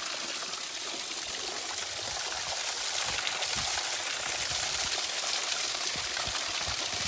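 Small waterfall spilling down a rock face, its falling and splashing water a steady hiss close by, growing a little louder about halfway through.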